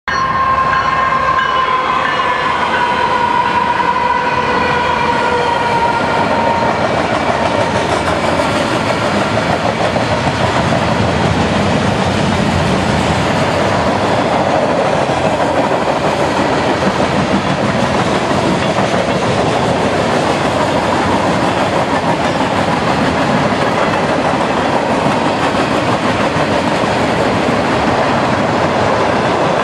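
Norfolk Southern freight train passing close by. Its locomotive horn sounds for the first six seconds or so, dropping slightly in pitch as it fades. Then comes the steady rumble and clatter of freight cars rolling over the rails.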